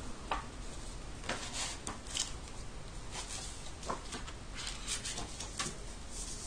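Paper and book handling: a printed paper insert and a book rustling as they are moved about, with a few light taps and scrapes.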